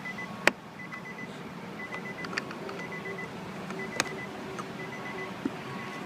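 An electronic chime beeping in a steady on-off pattern, typical of a car's door-open warning chime. Two sharp clicks cut through it, a loud one about half a second in and another about four seconds in.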